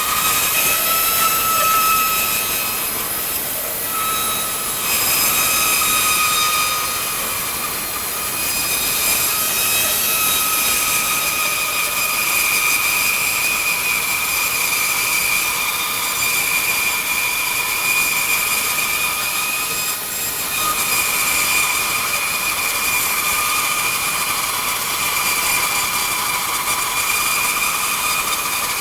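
Bandsaw resawing a thick board of hard maple: the blade cutting steadily under heavy load, a continuous high whine over the rasp of the cut, dipping briefly now and then as the feed eases.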